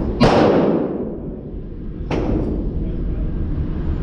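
Two gunshots on an indoor range, about two seconds apart, each a sharp crack followed by a long echo dying away in the concrete range; the first is the louder.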